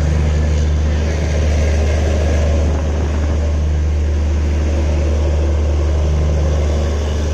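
Steady, loud running rumble of a moving Indian Railways passenger express train, heard from on board the coach.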